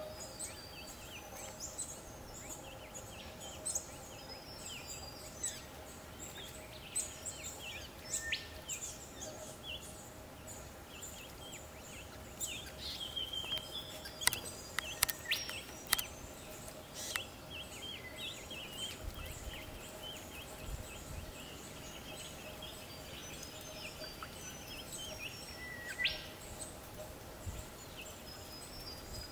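Small birds giving short chirps and calls over and over, over a faint steady hum, with a few sharp clicks about halfway through.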